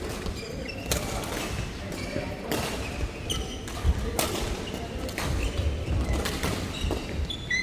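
Doubles rally on an indoor court: sharp racket strikes on the shuttle or ball at irregular intervals, with short shoe squeaks on the court floor and low footfall thumps.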